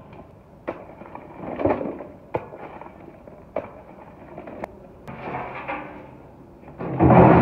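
Irregular sharp knocks and clatter of hard objects, with short rushes of noise in between and a loud noisy burst lasting about a second near the end.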